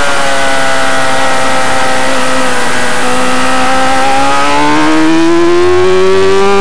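Racing motorcycle engine heard from an onboard camera, running at high revs through a long corner. The revs sag a little, then climb steadily through the second half as the rider gets back on the throttle, with wind rush over the engine note.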